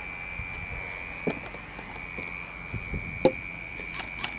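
Scattered soft thumps and knocks of a person moving stealthily over the ground and handling gear in the dark, the loudest about three seconds in, over a steady high-pitched whine and hiss. Near the end a quick run of sharp clicks begins.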